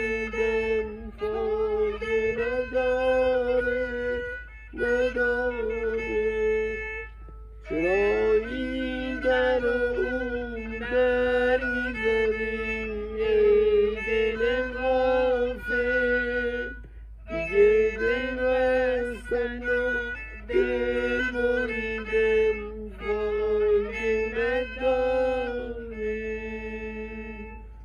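Kamancheh, the Persian spiked fiddle, bowed in melodic phrases broken by short pauses, tailing off near the end.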